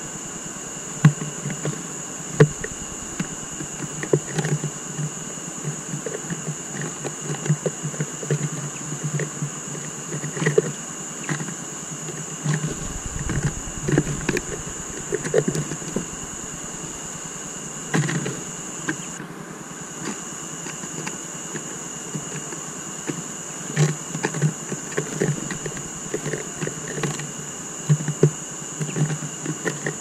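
Irregular light taps and knocks on a wooden bird feeder's seed board as tits land and pick at sunflower seeds, over a steady high-pitched electronic whine.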